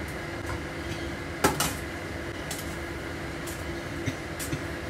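Metal tongs knocking and clicking against a steel stockpot while boiled noodles are lifted out: a sharp double clack about a second and a half in, then a few lighter clinks, over a steady background hum.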